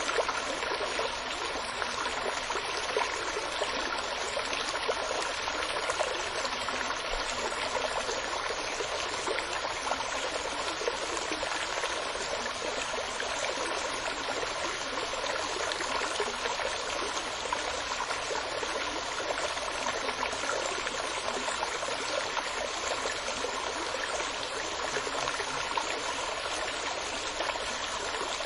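Steady running water like a flowing stream, an even, unbroken rush with no changes.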